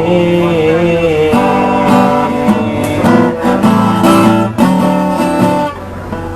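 Acoustic guitar strummed in chords, with a held sung note wavering with vibrato through the first second or so. The strumming stops shortly before the end.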